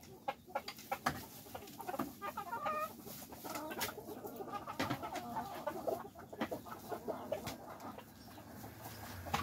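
A small flock of silkie chickens clucking while feeding, with repeated pitched clucks a few seconds in. Scattered short, sharp clicks of beaks pecking at the feed dishes run through it.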